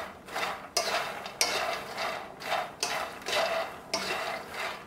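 Slotted wooden spatula stirring popped makhana (fox nuts) round a nonstick pan as they dry-roast in a little ghee. Each stroke is a swishing scrape with the light puffs rustling against the pan, about eight strokes at an even pace.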